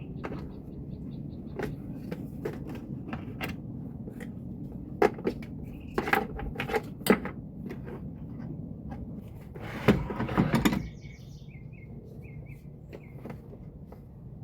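Tie-down straps being undone and a pressure washer being unhooked: scattered clicks, knocks and rattles, with a loud scraping rush lasting about a second near the two-thirds mark. A bird chirps in short repeated notes near the end.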